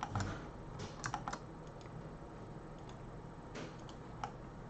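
Computer keyboard keys clicking in a few scattered bursts, most of them in the first second and a half and two more later on.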